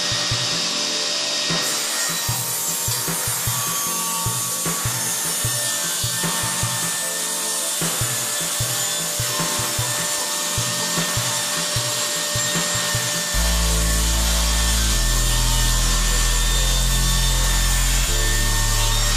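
Table saw with a freshly sharpened CMT rip blade cutting a larch board lengthwise, the blade running steadily through the wood as the board is fed. About two-thirds of the way in, music with a steady bass comes in and grows louder than the saw.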